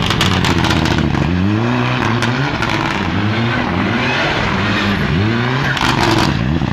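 Mitsubishi Lancer Evolution rally car's turbocharged engine revving up and down through a slide, its pitch climbing and dropping several times. Bursts of crackling pops come near the start and again about six seconds in.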